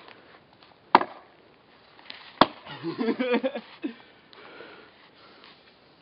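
A wooden stick striking thin new lake ice to test its thickness: two sharp knocks about a second and a half apart.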